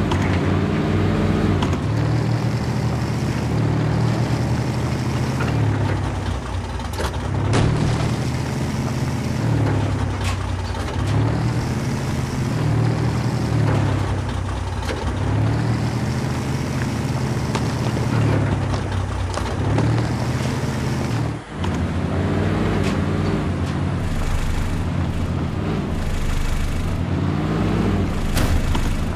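Truck engine sound revving up and dropping back over and over, about every two seconds, like a vehicle crawling over rough ground. It cuts out for an instant about two-thirds of the way through.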